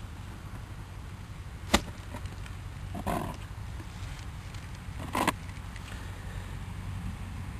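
Three knocks over a steady low hum: a sharp one about two seconds in, then two duller, slightly longer clunks.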